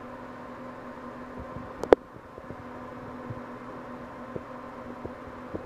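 Steady machine hum with a faint higher whine, broken by one sharp click about two seconds in and a few faint ticks later.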